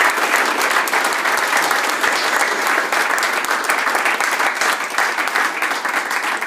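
Small crowd applauding: many hands clapping steadily together.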